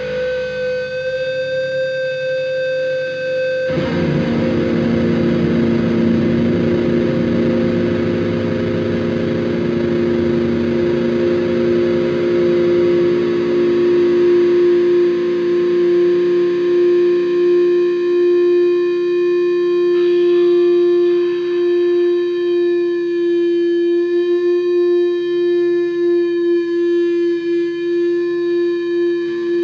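Distorted electric guitar through an Orange amplifier and effects, playing slow drone chords that sustain and swell. About four seconds in, a fuller, denser chord comes in, and a low note then rings on steadily underneath.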